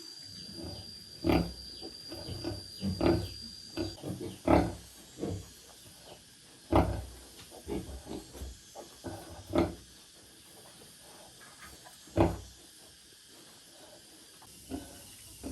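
Sow grunting in short, irregular grunts, with a pause of a couple of seconds late on. A faint steady high-pitched tone sounds in the first few seconds.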